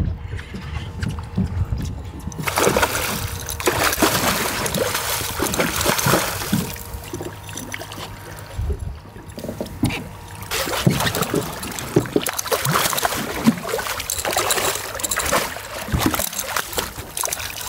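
A hooked fish thrashing and splashing at the surface of choppy water close to a boat, in two long bouts of splashing, the second starting about halfway through.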